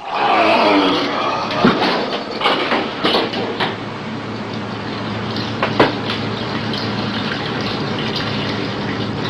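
Dense noise texture with a steady low hum and scattered clicks, swelling brighter in the first second, in an ambient passage of an electronic track.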